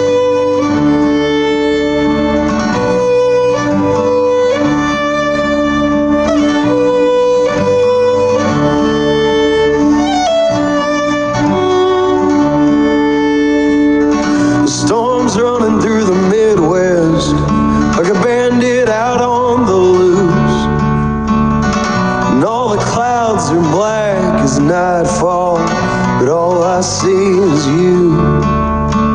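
Country music with fiddle and guitar playing.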